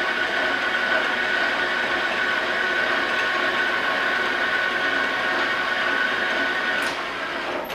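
Victor metal lathe running with a steady gear whine while turning a drill-rod part. About seven seconds in there is a click, and the spindle is shut off and the sound dies away.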